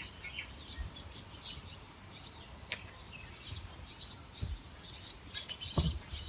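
Small birds chirping and twittering on and off, with a few dull low thumps, the loudest near the end, and one sharp click about three seconds in.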